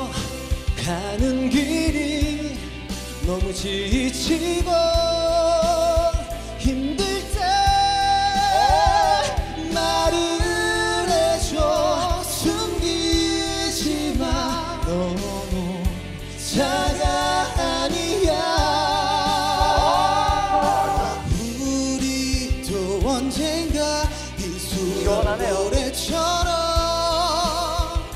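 Male vocal duet singing a ballad over a band with steady drums and bass; long held notes with wide vibrato.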